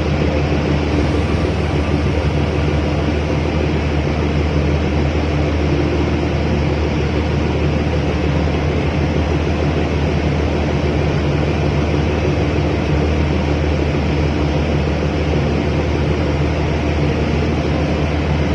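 Boat engine running steadily, a deep, even drone that does not change.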